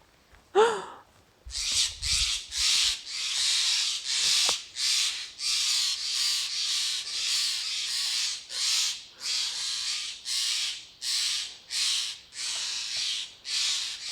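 Footsteps crunching at a steady walking pace, about one and a half steps a second, starting about a second and a half in. Just before them, a short pitched call rises and falls.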